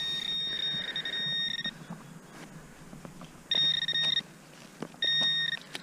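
Metal detector sounding a steady high tone over a buried target in a freshly dug plug of soil: one long tone that stops about two seconds in, then two shorter tones of about half a second each.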